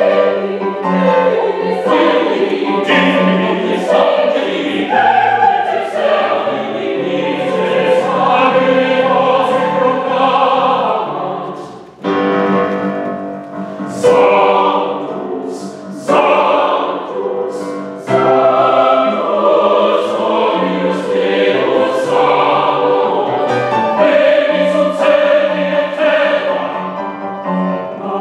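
Mixed choir singing a Classical-era choral work with piano accompaniment. About twelve seconds in the sound briefly drops, then comes back in a few short, loud chords with brief gaps before the full singing resumes.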